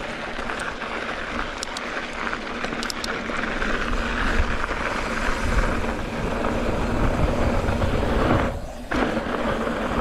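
Wind buffeting the bike-mounted camera's microphone, mixed with mountain bike tyres rolling over loose volcanic gravel. It is a steady rumbling rush that dips briefly near the end.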